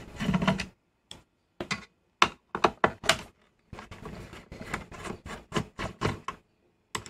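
Screwdriver and screws clicking and knocking against the metal chassis and tape mechanism of a portable VCR as its screws are taken out and handled: an irregular run of short sharp clicks and taps.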